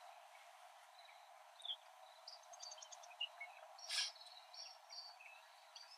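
Faint outdoor ambience of small birds chirping and insects calling, with one brief sharp sound about four seconds in.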